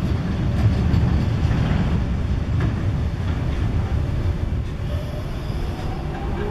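Freight train of loaded container wagons rolling past, a steady low rumble of steel wheels on the rails.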